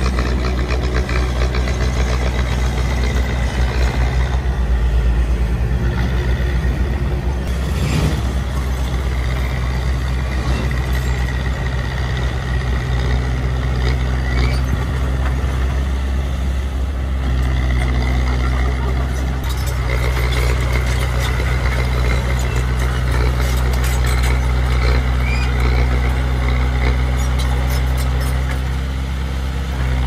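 Diesel engines of a small crawler bulldozer and dump trucks running steadily at a low pitch. There is a sharp knock about eight seconds in, and the engine note shifts a little past halfway.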